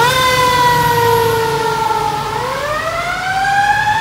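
Fire apparatus siren wailing as it passes: it climbs sharply in pitch right at the start, sags slowly for about two seconds, then winds back up.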